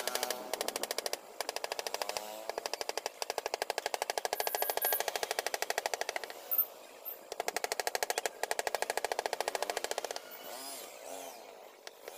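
Rapid, even tapping of a mallet on a wood-carving chisel cutting into a board, about ten light blows a second, in runs of a few seconds with short pauses between them.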